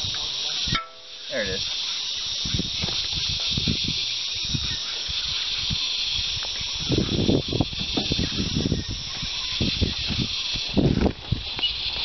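Steady high-pitched insect chorus, with irregular low rumbles and bumps over it, busiest past the middle and near the end.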